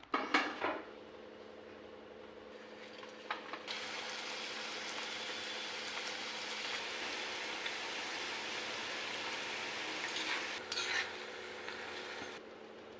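A metal utensil clatters against a pan, then from about four seconds in food sizzles steadily as it fries in hot oil. A few more utensil clinks come near the end, and the sizzle drops away shortly before the end.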